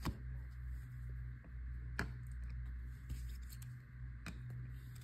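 Faint handling sounds of trading cards being moved and set aside: three short, sharp clicks or taps, at the start, about two seconds in and a little past four seconds, over a steady low hum.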